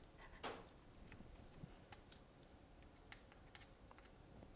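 Near silence with a few faint, scattered light clicks from gloved hands handling a phone; the most distinct comes about half a second in.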